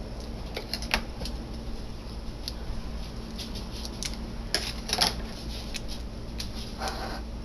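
Hard plastic packaging being handled and worked open, giving scattered clicks and crackles, with a few sharper snaps about one, five and seven seconds in.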